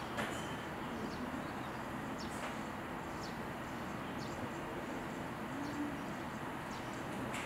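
Steady outdoor background noise with faint short bird chirps scattered through.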